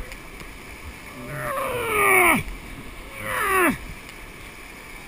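Two loud yells from rafters, each about a second long and falling in pitch, over the steady rush of whitewater rapids.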